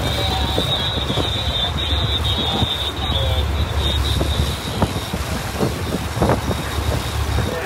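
Fishing boat's engine droning steadily as it runs with trolling lines out, over wind and rushing wake noise. A high steady whine sits on top for about the first four seconds, then fades.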